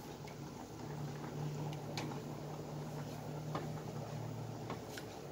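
Silicone spoon stirring thick tomato sauce in a frying pan, giving scattered faint clicks and soft wet sounds, over a low steady hum.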